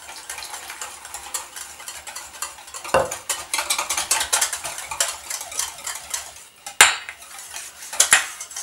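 A wire whisk beats a thin emulsified salad dressing in a stainless steel bowl: a rapid scraping and clicking of the wires against the metal, busier after about three seconds. A few sharp clinks sound against the bowl, one about three seconds in, one near seven seconds, and two close together near the end.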